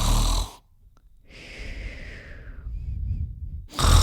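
Exaggerated comic snoring. A loud rasping snore fades out about half a second in, a long, softer breathy exhale follows, and a second loud snore starts near the end.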